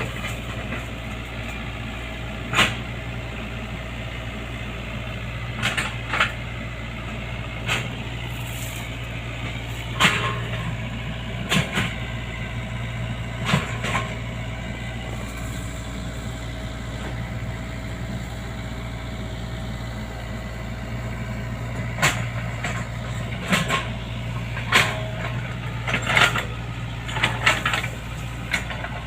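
Excavator's diesel engine running steadily, with short sharp knocks and cracks at irregular intervals, several of them close together near the end.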